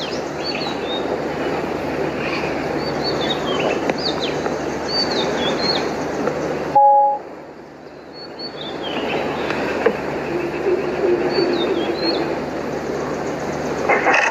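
Steady rumbling noise with small birds chirping high over it in short rising and falling calls. About halfway through, the rumble cuts out with a short electronic beep, then fades back in with more chirps.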